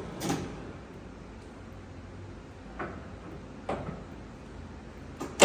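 Leblond Regal engine lathe running slowly with a low, steady hum, with a few short knocks and a sharp, loud click near the end, typical of the headstock speed levers being shifted.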